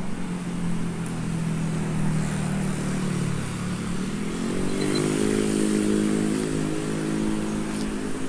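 Motorcycle engine running on the road alongside, over a background of passing traffic; its pitch rises about halfway through as it speeds up.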